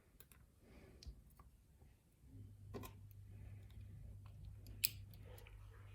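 Faint scattered clicks and taps of small brass lock pins and tools being handled as a pin-tumbler lock is taken apart, the sharpest click a bit under five seconds in. A low steady hum starts a little over two seconds in.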